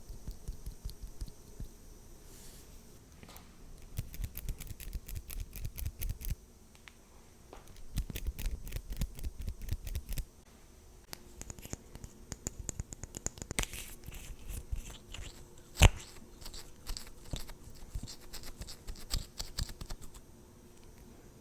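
Close-miked ASMR tapping and scratching on makeup products and tools, in quick clusters of small clicks, with one sharp click near the middle.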